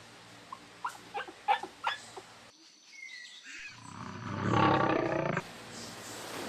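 An animal calling: a few short, high calls, then a loud drawn-out call lasting about a second and a half that cuts off suddenly.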